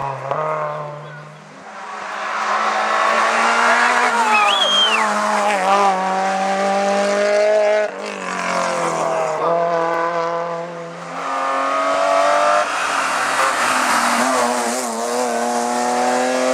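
Hillclimb race car engines under hard acceleration, climbing in pitch with sudden drops at gear changes. A brief tyre squeal comes about four to five seconds in.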